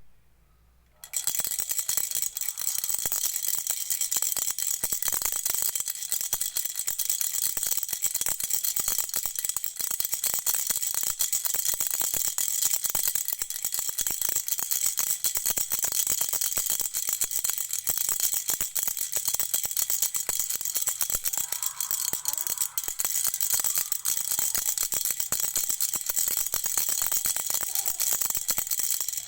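A child's rattle shaken continuously, a dense rapid clicking and rustling that starts about a second in.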